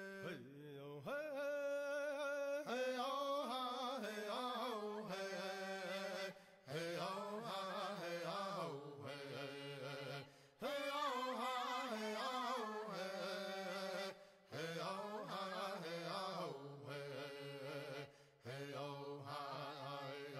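A voice singing a slow chant in long, gliding phrases of about four seconds each, with short breaks between them.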